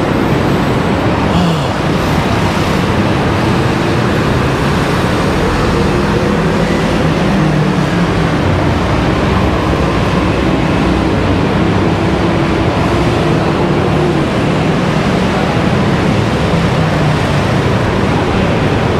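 Steady city road traffic noise, a continuous wash with the low drone of vehicle engines rising and falling slowly.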